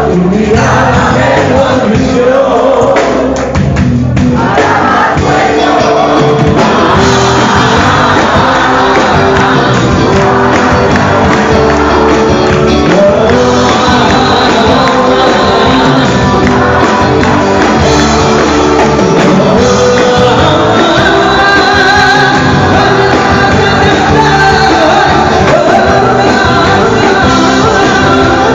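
Live rock band playing a song with a lead singer, loud and dense, with the crowd shouting and singing along.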